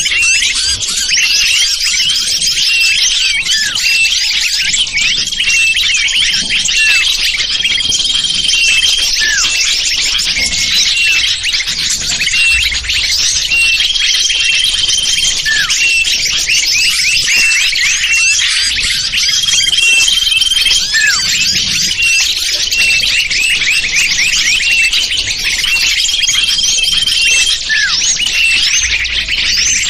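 A dense, continuous chorus of many small birds chirping and twittering, with a short level whistle repeating every few seconds. It is a lure recording played to draw wild small birds in.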